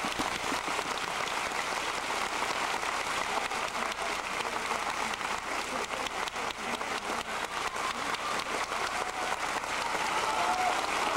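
Large hall audience applauding steadily, many hands clapping at once, as the boxer bows after his farewell speech.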